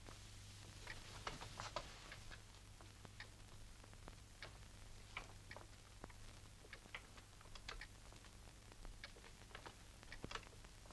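Near silence: a low steady hum under faint, irregular soft clicks and rustles, scattered through the quiet.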